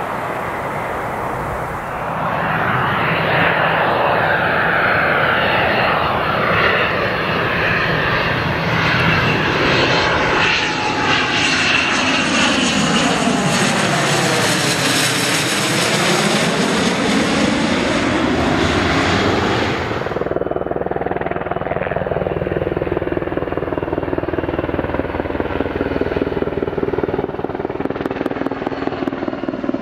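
A Learjet's twin jet engines swelling to a loud steady rush as it climbs out and passes overhead, with a phasing sweep in the sound around its closest point about halfway through. About twenty seconds in this cuts abruptly to the rapid, even rotor beat of a Sikorsky Black Hawk helicopter flying overhead.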